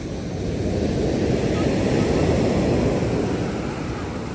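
Ocean surf: a wave breaking and washing up the beach, its rush swelling about a second in and easing off near the end.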